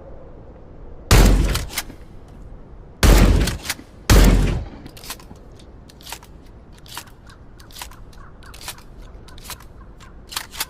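Winchester Model 1897 trench shotgun fired three times: about a second in, at three seconds and at four seconds, each shot with a short ringing tail. A couple of clicks follow the first shot, and after the third comes a run of about a dozen sharp clicks.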